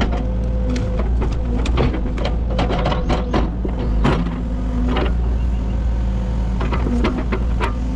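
Cat 308 excavator's diesel engine running steadily, with a string of sharp knocks and cracks over it, thickest in the middle few seconds.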